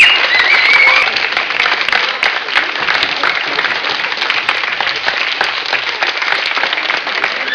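Crowd applauding, a dense patter of many hands clapping, with a man's short wavering whistle in the first second.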